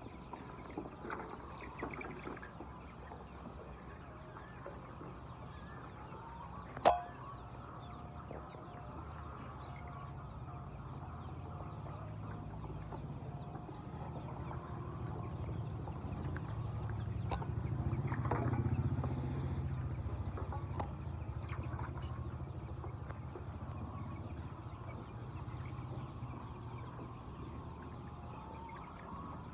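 Laying hens clucking in a poultry house over a low steady hum that swells around the middle. A sharp click sounds about seven seconds in, and a lighter one about seventeen seconds in.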